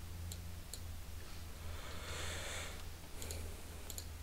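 Computer mouse clicks: a couple of sharp clicks near the start and a quick cluster near the end, over a steady low electrical hum. A short soft hiss comes about two seconds in.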